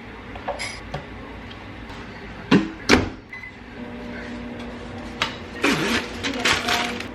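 Two sharp knocks, then a steady small-motor hum from a kitchen appliance that starts about four seconds in, with some clattering and rustling over it.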